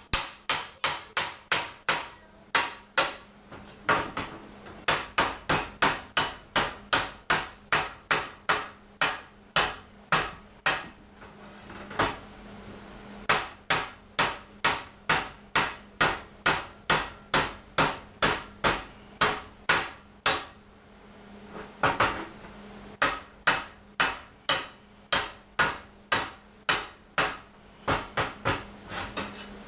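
Hammer striking steel in a steady run of sharp, ringing blows, about two a second, with two short breaks, about 11 and 21 seconds in.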